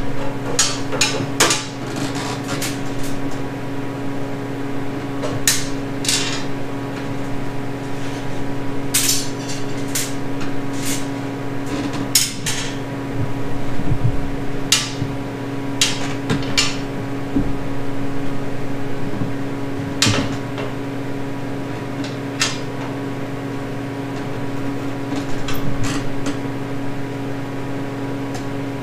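Scattered metal clinks and knocks of bolts and hand tools being handled against a steel mower frame, over a steady hum.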